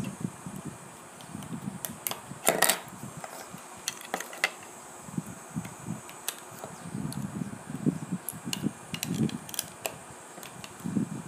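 Plastic Lego bricks and tiles clicking and tapping as fingers handle them and press them onto a plate, in irregular clusters. Soft, muffled handling rumble comes and goes between the clicks.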